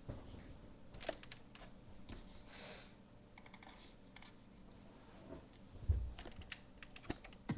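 Computer keyboard typing and clicks: scattered keystrokes in short runs with pauses between them, and one dull thump about six seconds in.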